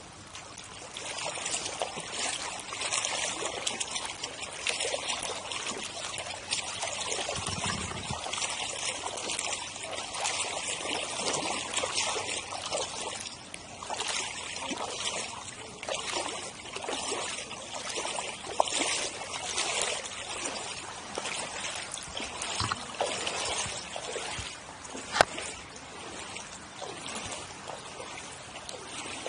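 Floodwater splashing and trickling close to the microphone, a steady run of many small irregular splashes. A short low thump comes about a quarter of the way in, and a single sharp knock near the end.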